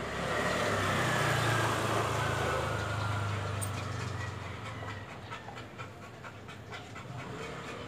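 Acetylene gas torch flame hissing while it preheats an aluminum winding wire for joining with aluminum rod. The hiss is strongest for the first four seconds or so, then eases to a softer sound with faint ticking.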